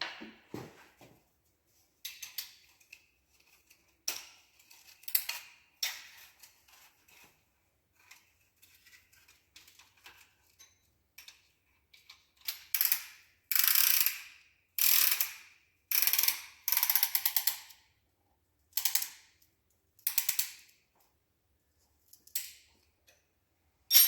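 A piston ring compressor's ratchet being worked to squeeze the rings of a diesel engine piston, in a series of short bursts of rapid clicking that are loudest in the second half.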